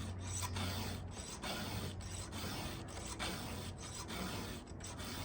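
A 7/32-inch round file being stroked by hand across the cutters of a Stihl RS full-chisel chainsaw chain, sharpening it. The strokes are even rasps, about two a second.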